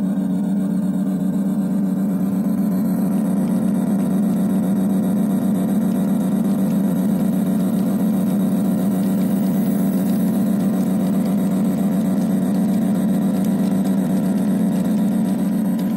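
Diesel locomotive engine sound, a steady low drone that holds an even level throughout.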